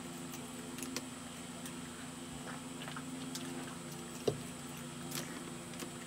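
Eating sounds of fried chicken being pulled apart by hand and chewed: a few soft clicks and crackles over a steady electrical hum, with one sharper knock a little past the middle.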